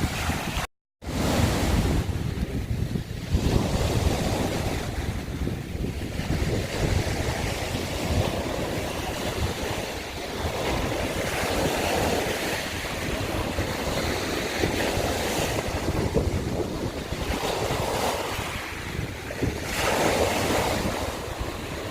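Sea waves breaking and washing over a shore of broken scallop shells: a continuous surf hiss that swells every few seconds. Wind buffets the microphone with a low rumble. The sound cuts out completely for a moment about a second in.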